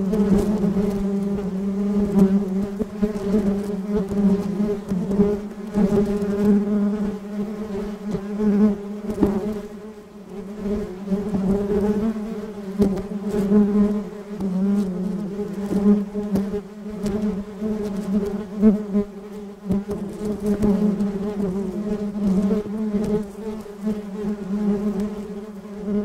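Many honeybees buzzing together in a continuous low drone that swells and fades.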